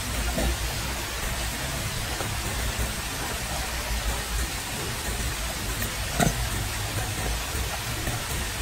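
Steady outdoor hiss with a low rumble underneath, and a single short knock a little past the middle.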